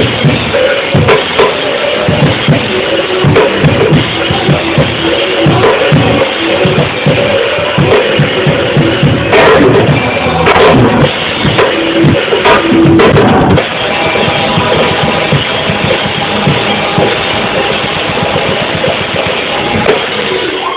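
Live praise music from a band led by a drum kit, with bass drum and snare hits under the instruments, loud and steady.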